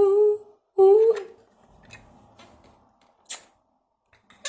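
A woman's drawn-out, sing-song wail, held on one note, fills the first second or so. Then the room goes quiet apart from a couple of light clicks, one in the middle and one near the end.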